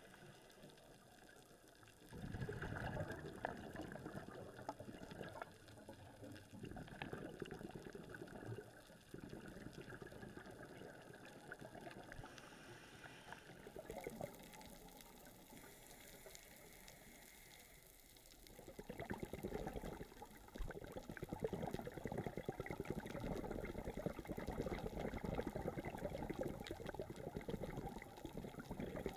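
Scuba diver's exhaled bubbles streaming from the regulator, heard underwater as long bubbling rushes of several seconds each, with a quieter stretch in the middle.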